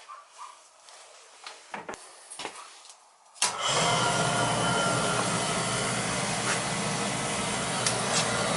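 Beckett oil burner starting up suddenly about three and a half seconds in, after a few small knocks, then running steadily with its motor and blower noise and a low hum.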